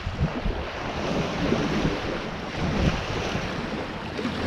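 Wind buffeting the microphone over the wash of sea waves on the shore, a steady rumbling rush with no engine heard.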